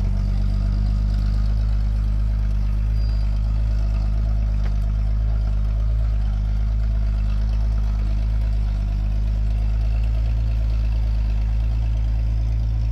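Off-road 4x4's engine running steadily at low revs during a slow rock crawl, a low, even drone.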